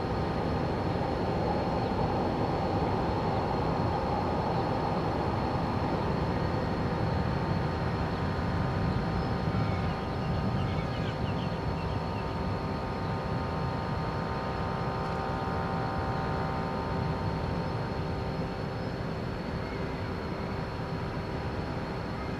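Steady drone of a ro-ro car carrier's machinery, with several steady hum tones over a low rumble, easing slightly in the second half.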